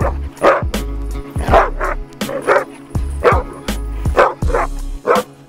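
Harnessed sled dogs barking and yipping excitedly, roughly two sharp barks a second, over background music with a heavy bass beat.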